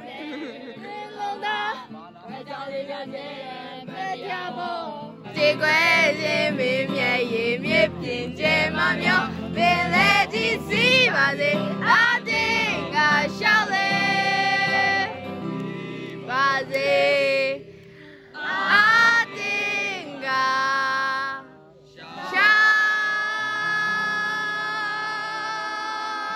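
A song with a high singing voice over steady accompaniment, ending on a long held note.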